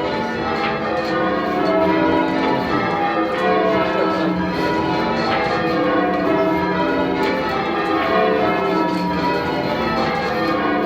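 Ten church bells, the tenor 18½ cwt in E, rung in call changes: an even, unbroken run of strikes, each bell still ringing as the next sounds.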